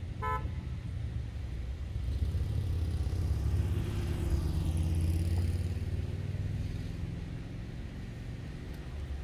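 An engine passing by: a low rumble that builds over a couple of seconds, peaks near the middle and fades away, its pitch dropping as it goes.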